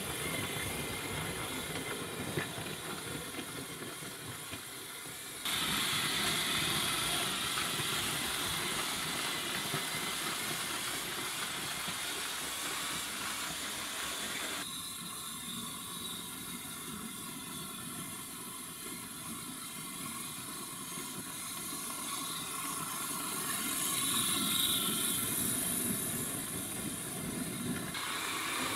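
Motorised LEGO trains running on plastic track: a steady whirring hiss of motors and wheels. The sound changes abruptly about five seconds in, about fifteen seconds in and near the end.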